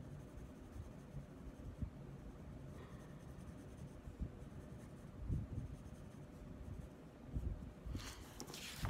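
Soft drawing pencil shading on paper, faint scratching strokes with a few soft low bumps. About eight seconds in, the sheet of paper rustles and slides as it is turned.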